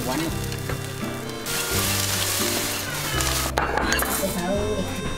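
A large wok of soup boiling hard with a steady sizzling bubble, while a ladle scoops broth into a bowl. The sound breaks off suddenly a little past halfway.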